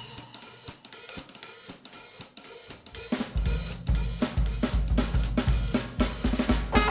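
Jazz drum kit playing a break on cymbals, hi-hat and snare, getting steadily louder, with the bass drum coming in hard about halfway through.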